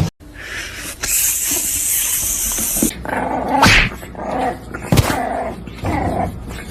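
A dog growling and barking in several short bursts, with a sharp click about five seconds in.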